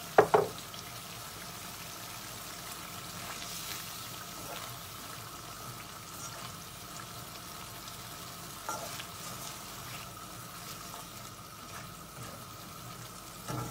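Spice masala sizzling steadily as it fries in a steel wok, stirred now and then with a spatula. One sharp knock comes right at the start, with a few lighter scrapes later on.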